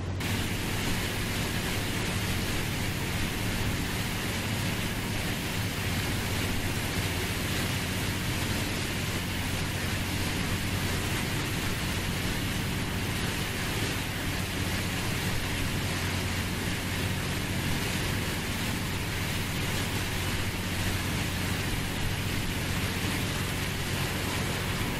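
Steady hiss of water spraying and running through a shrimp cutter's rotating drum sieve, over the constant low hum of the boat's engine.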